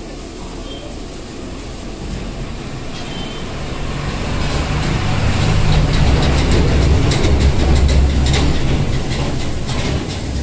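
Low rumble of something heavy passing by, swelling over several seconds to its loudest a little past the middle and easing off near the end, with a run of quick clicks and rattles at its loudest.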